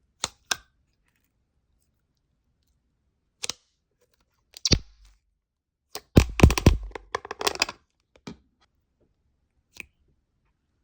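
Slime being pressed and squished by hand, giving sharp crackling pops and crunches: a few separate pops at first, then a dense run of crackles past the middle, then two last clicks.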